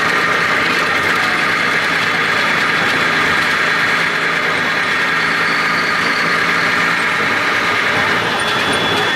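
Old bus engine running and road noise on the move, heard from inside the cabin as a loud, steady drone. About eight seconds in, the drone eases off and a thin high whine comes through.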